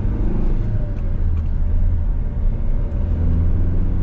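Cabin noise of a Hyundai Creta's four-cylinder diesel engine and its tyres on the road at highway speed: a steady low drone.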